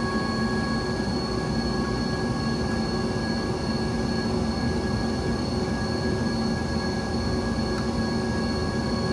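Steady drone of running machinery, with a few constant humming tones and no distinct knocks or clicks.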